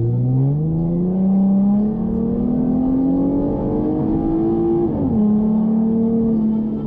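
2014 Ford Mustang engine through its aftermarket exhaust under acceleration, the engine note rising steadily for about five seconds, then dropping suddenly and running on at a steady pitch.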